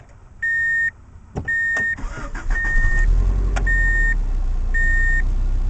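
A car's warning chime beeping steadily about once a second, while the already warm engine is started, catching about two seconds in and settling into a steady idle.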